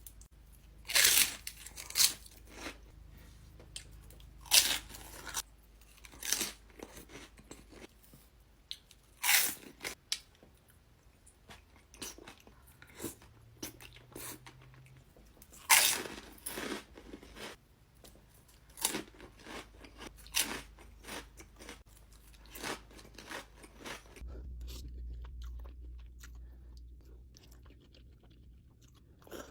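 Close-miked eating of a Chipotle burrito bowl: loud, sharp crunchy bites every few seconds, with quieter wet chewing in between.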